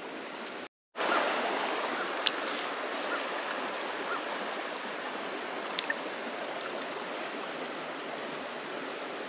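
Creek water running: a steady rushing hiss of flowing water, with a few faint ticks. It cuts out completely for a moment just under a second in, then carries on.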